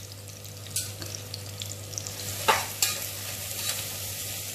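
Sliced onions, whole spices and green chilies sizzling in hot oil in a pressure cooker, stirred with a metal spatula. The spatula knocks and scrapes against the pot a few times, loudest about two and a half seconds in.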